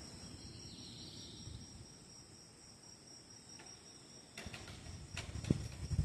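Crickets chirring in a steady, high-pitched pre-dawn chorus, over a low rumble. A few clicks and low knocks come in the second half.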